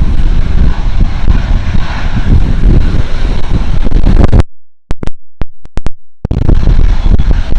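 Wind buffeting the microphone over the steady jet noise of a taxiing Boeing 737-900 airliner. The sound cuts out almost completely for about two seconds midway, broken by a few sharp clicks, then resumes.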